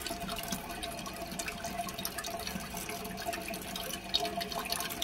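Toilet tank fill valve running, water hissing steadily into the tank with a faint steady whine, as the tank refills. A few light clicks from parts being handled in the tank.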